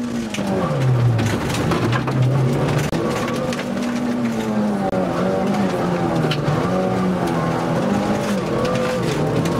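Opel Corsa rally car engine heard from inside the cabin at racing speed on gravel. The pitch sweeps down and back up several times as the driver lifts, shifts and accelerates, with two short lifts off the throttle around three and five seconds in. Frequent sharp ticks of gravel striking the car run under it.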